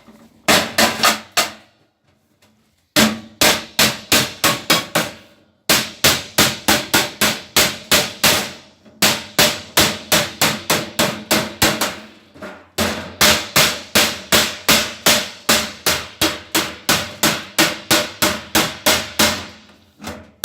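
Hammer blows on a sheet-metal rain downpipe as it is being formed: rapid, even strikes about four to five a second, in several runs broken by short pauses.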